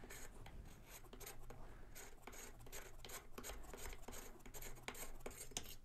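Faint rubbing and scraping with many light clicks, as a screw-in choke tube is turned out of a Beretta 1301 shotgun's barrel by hand.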